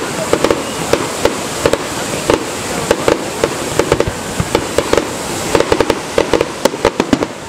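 Fireworks going off: a rapid, irregular string of sharp bangs and pops, several a second, over a steady background hiss.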